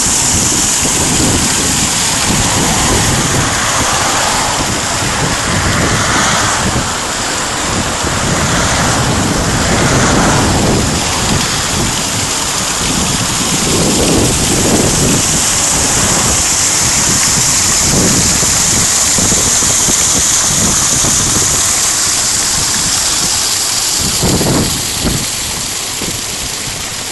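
Water from a small spring pouring over a rock face and splashing below, a steady loud rushing hiss. Wind buffets the microphone in low rumbling gusts several times, the longest near the end.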